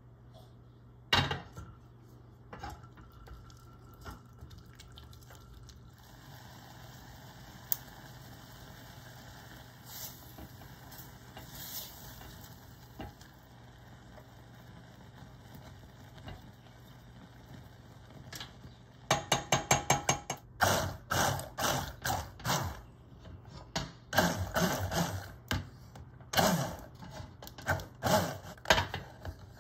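A sharp click about a second in, then strawberries simmering quietly in a stainless saucepan. About two-thirds of the way in, a run of short loud bursts, about two a second, as a hand-held immersion blender is pulsed in the pan to purée the cooked strawberries.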